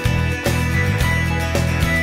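Background music with a steady beat, laid over the riding footage.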